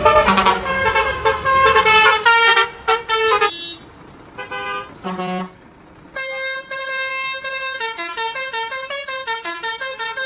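Truck horns honking over engine and road noise, blowing a quick run of changing notes. After a short lull with a few brief toots, a clean melody of stepped notes starts about six seconds in.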